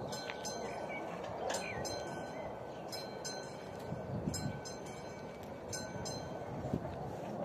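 Classic mechanical warning bell of a level crossing ringing in double strikes, ding-ding, about one pair every one and a half seconds, over a steady rushing background.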